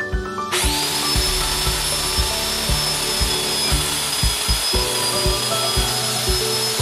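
Handheld circular saw switched on about half a second in, spinning up to a steady high whine as it cuts through aluminium extrusion. Background music with a steady beat plays underneath.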